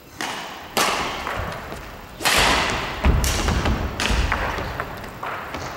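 Badminton rally: sharp racket hits on the shuttlecock and heavy footfalls on a sprung wooden gym floor, about six impacts in all, each ringing out in the hall's echo. The loudest, deepest thuds come a little past two seconds and about three seconds in.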